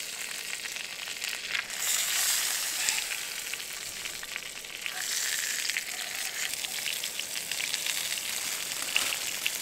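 Meat fat sizzling and crackling in a hot non-stick frying pan as the fat edge is rendered down. The sizzle swells louder about two seconds in and again about halfway.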